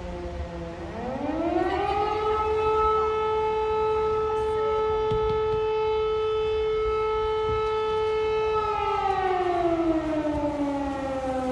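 Civil defense siren wailing: a tail falling away at the start, then a rise about a second in to a steady high tone held for several seconds, then a slow fall near the end. It is sounding a public alert.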